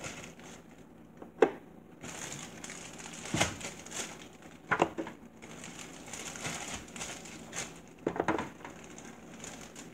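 Plastic oven cooking bag crinkling and rustling irregularly as a large piece of meat is pushed into it, with a few sharp knocks, the loudest about a second and a half in.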